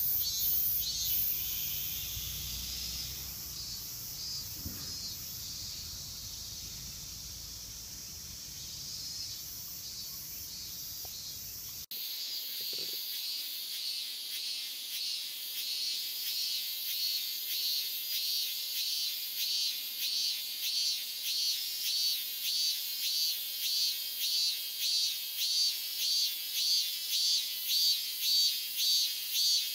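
A steady, dense chorus of cicadas. About twelve seconds in it changes suddenly to a single robust cicada (minminzemi, Hyalessa maculaticollis) calling in a repeated pulsing phrase, about three pulses every two seconds, growing louder near the end.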